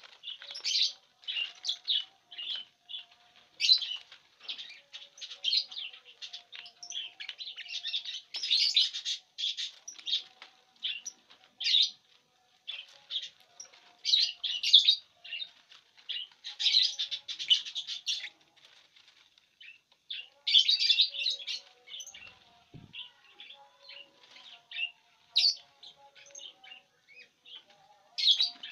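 Lovebirds chirping in a rapid, shrill chatter, with rustling of the dry corn husks they are tearing into nesting strips.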